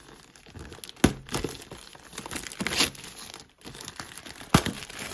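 Cardboard booster boxes being handled: crinkling and rustling, with two sharp knocks, one about a second in and one near the end.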